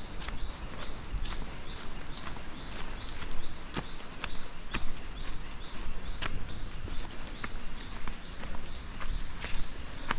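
Steady high-pitched drone of jungle insects, with the footsteps of someone walking a dirt trail in flip-flops, about two steps a second.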